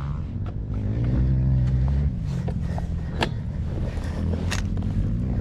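Dirt bike engine running while being ridden. Its pitch climbs gently for about two seconds, then drops, and a couple of sharp clicks come later.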